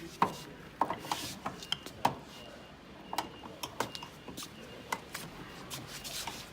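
Irregular clicks and light knocks of hands and tools working on a dishwasher's plastic panels and clips, with a few sharper clicks spread unevenly through it.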